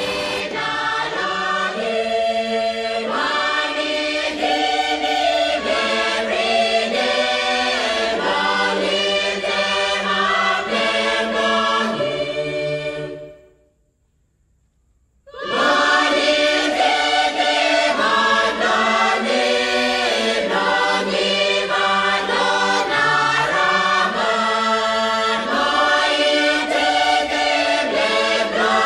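Background music of a choir singing over a steady beat. About halfway through it fades out into a second or two of near silence, then comes back in suddenly.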